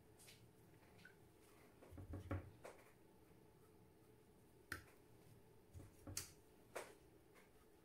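Faint, scattered light taps and clicks of a watercolour brush and painting tools being handled: a small cluster about two seconds in, then a few single ones later.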